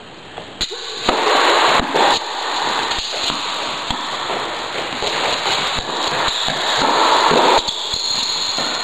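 Tennis balls struck with racquets, heard as short sharp clicks, under a loud crackling hiss that starts about a second in and swells and fades.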